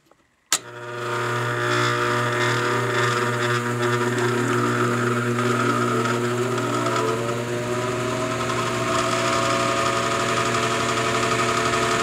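Air handler blower motor switched on: a sharp click about half a second in, then a loud steady electrical hum as the motor strains to start. This is the sign of a failed blower motor with burnt windings that is not spinning up properly.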